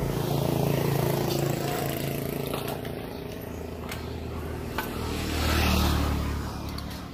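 A motor vehicle engine running steadily, fading, then swelling louder again about five to six seconds in as it passes, with a few faint clicks.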